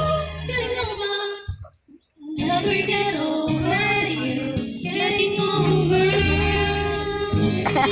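Karaoke: a woman singing into a microphone, her voice amplified over the karaoke machine's backing track. The sound drops out briefly about two seconds in, then the song carries on.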